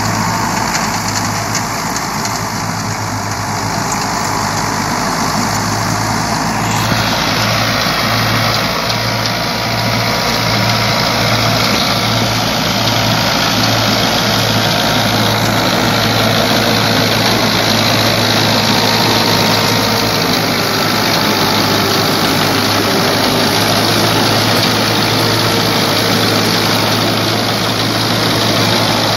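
Massey Ferguson 165 tractor's diesel engine running steadily under load as it drives a KSA straw reaper cutting wheat stubble, a low pulsing engine note under the reaper's dense, even rush of cutting and chopping. The sound shifts abruptly about seven seconds in.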